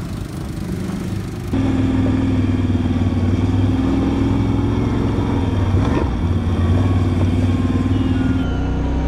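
ATV (quad bike) engine running at a steady engine speed, heard from on board the machine. Its low hum rises and falls slightly in pitch, with a brief break about six seconds in.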